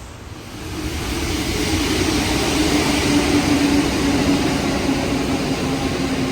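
Rubber-tyred metro train running on a wet elevated track: the sound swells in about a second in to a steady hiss of tyres on the wet running rail with a motor hum that dips slightly in pitch near the end.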